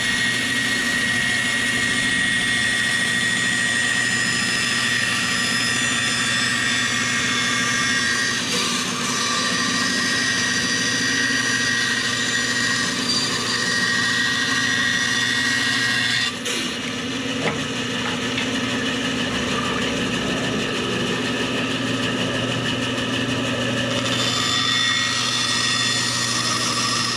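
Band saw running steadily, its blade cutting along a curved line in a 1x6 board. The sound dips briefly about two-thirds of the way through, then carries on.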